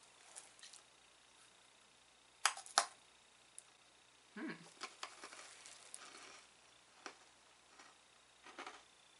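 Crisp sugar-glazed cookie being bitten: two sharp crunches close together, then a run of crunching chews.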